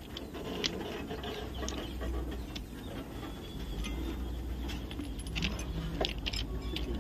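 Scattered light metallic clinks of steel bolts, nuts and tools against the fish plate at a rail joint as a trackman fits the bolts by hand, over a low steady rumble.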